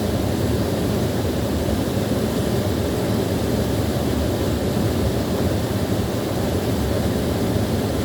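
Small waterfall splashing and pouring steadily, a full low rushing sound without breaks.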